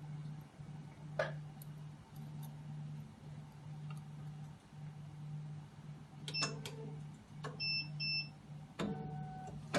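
HY-3300 hematology analyzer running a quality-control test cycle: a low hum from its internal mechanism that pulses roughly once a second, with occasional clicks. A few short high electronic beeps come near the end.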